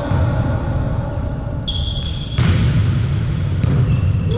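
Volleyball play on an indoor court: sneakers squeak several times, and a ball is struck hard about two and a half seconds in, ringing through the hall over a steady low rumble.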